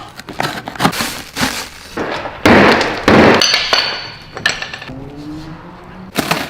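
Quick knocks, clinks and clatter of hand tools on car parts during disassembly, with a loud noisy burst about two and a half seconds in.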